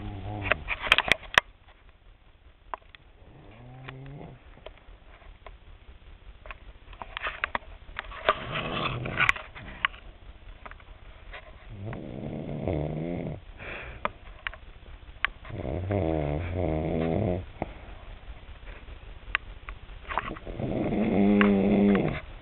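Elderly woman snoring in her sleep: several drawn-out, rough, pitched snores a few seconds apart, growing louder toward the end. A few sharp clicks sound about a second in.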